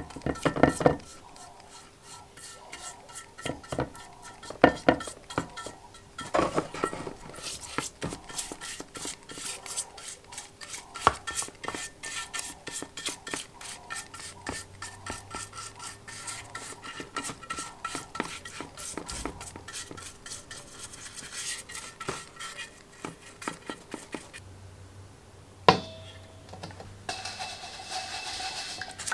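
A paintbrush working white foam over a sandwich-toaster plate in a plastic tub: quick rubbing and dabbing strokes, with knocks of the brush and metal plate against the tub, the loudest a sharp knock a few seconds before the end.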